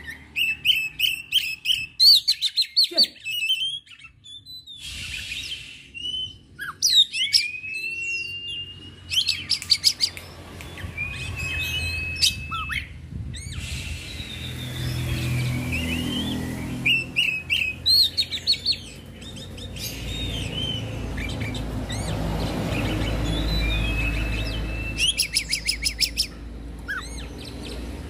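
Oriental magpie-robin singing in bursts of varied phrases: clear whistles, rising and falling notes and fast chattering trills, with short pauses between. A low rumble sits under the song in the second half.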